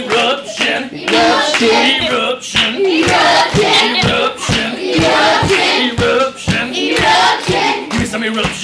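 A class of children making a dance beat with their voices, chanting along over a steady low thump about twice a second, with some clapping.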